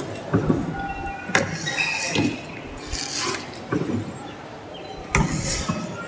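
Hand-cranked paper cutting machine being turned: its chain-and-sprocket drive and Geneva wheel mechanism give a series of irregular metallic knocks and clinks, roughly a second apart.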